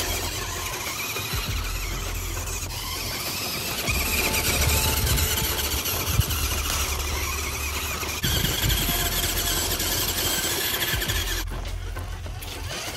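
Electric drive of a Maisto Tech Ford Bronco RC toy truck whining as it drives over dirt and leaves, the whine rising and falling in pitch with the throttle.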